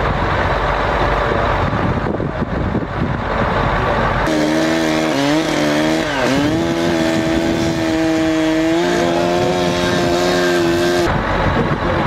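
A truck's diesel engine running as a rough steady rumble. About four seconds in, a chainsaw takes over, running at high revs with a strong steady whine. Its pitch dips and wavers briefly, then holds level until it cuts off about a second before the end, leaving the engine rumble.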